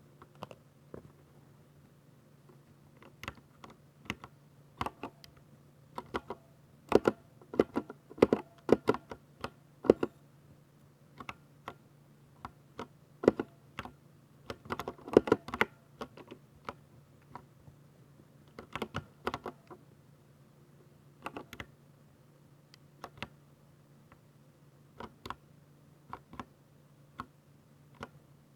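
Typing on a Ducky 60% mechanical keyboard with silver switches: irregular key clacks, some single and some in quick runs, busiest in the middle, over a faint steady low hum.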